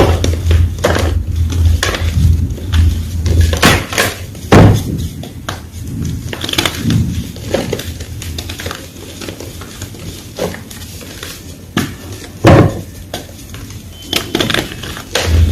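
Fresh white gym chalk crunching and crumbling in a series of crisp, irregular crunches, two of them much louder, about four and a half and twelve and a half seconds in.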